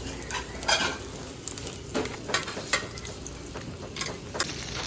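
Oil sizzling on a griddle as jeon (Korean savory pancakes and meatball patties) fry, with scattered sharp clicks and scrapes of a utensil against the pan.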